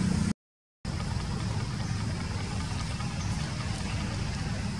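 Steady outdoor background noise with a low rumble, which briefly cuts out to silence about half a second in.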